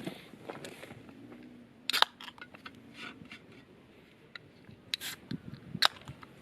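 Scattered sharp clicks, taps and short scrapes of small objects being handled, the loudest about two seconds in and a cluster near the end.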